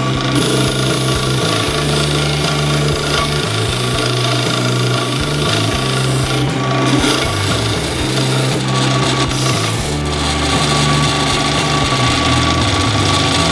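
Drill press spinning a homemade sandpaper-wrapped spindle sanding drum while the edge of a plywood board is pressed against it: a steady rasp of sanding over the running motor.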